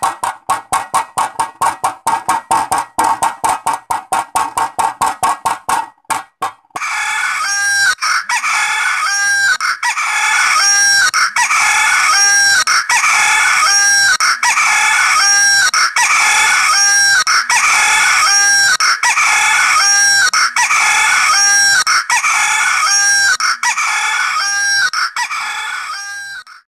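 Chicken clucking sound effect, one call repeating at an even pace a little faster than once a second. It follows a rapid run of clicks that stops about six and a half seconds in.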